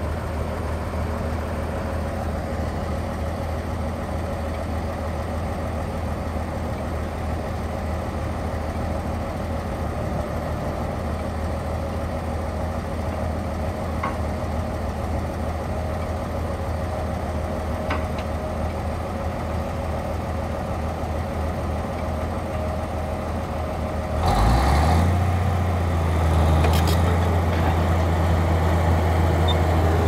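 Heavy diesel engines of a crawler bulldozer and a log truck idling steadily, with two faint metallic clicks. About 24 seconds in, an engine suddenly revs up and stays much louder and steady under load as the dozer pulls the loaded log truck on a tow cable.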